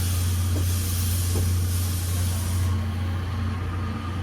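A train at a station with a steady low hum and a loud hiss that cuts off suddenly about two-thirds of the way through.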